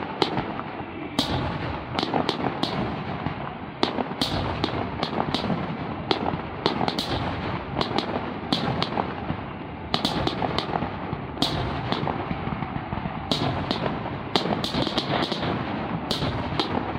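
Fireworks display: aerial shells bursting one after another, with many sharp bangs and cracks, several a second at times, over a constant dense din of further bursts.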